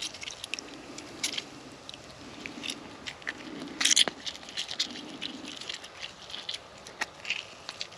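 Close-up clicks, crackles and rustles of hands handling food ingredients and their packaging while cooking, irregular and sharp, with the loudest cluster about four seconds in, over soft low puffs that recur roughly once a second.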